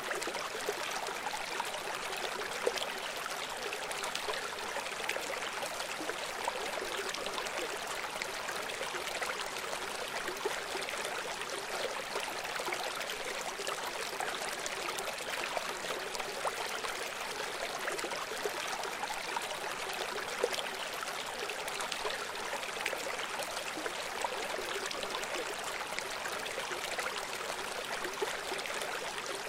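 River water flowing: a steady, even rush with many small trickles and splashes through it, and little deep rumble.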